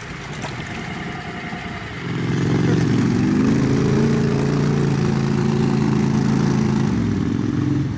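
Six-wheel amphibious ATV engine running under load as the machine churns through deep mud. It gets much louder about two seconds in and then holds steady.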